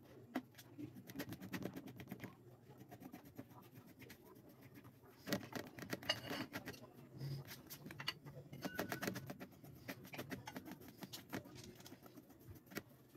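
Kitchen knife chopping on a thin plastic cutting board: quick, irregular taps of the blade against the board, coming in runs that are busiest in the middle.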